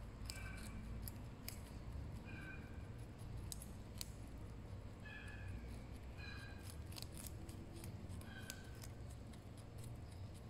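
Two young rabbits chewing raw baby carrot pieces off a skewer: a run of crisp, irregular crunching clicks.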